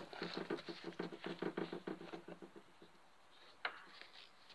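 Rustling and rubbing on the phone's microphone as it is carried with the lens covered: a fast, soft patter for about two and a half seconds, fading out, then one sharp click.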